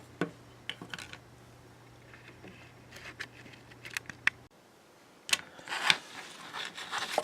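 Scattered small clicks and taps of objects being handled over a faint steady hum. After an abrupt cut, louder clattering and rustling handling noises follow.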